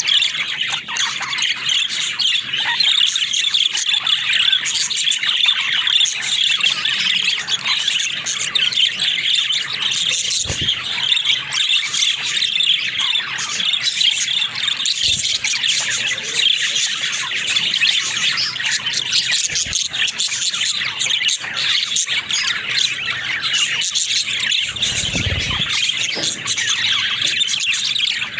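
Budgerigars chattering: a dense, unbroken stream of fast warbles, chirps and squawks.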